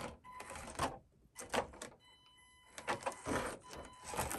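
Panda Hobby Tetra X1 RC crawler's small electric motor and gears whining in short spurts, with irregular clicks and taps as it climbs over rock.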